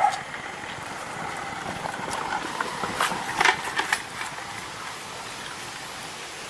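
A quick cluster of sharp knocks and clinks about three to four seconds in, over steady background noise.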